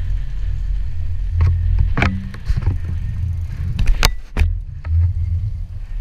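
Steady low rumble of wind and boat on the microphone, broken by several sharp knocks and clicks as the camera and its mount are grabbed and moved by hand.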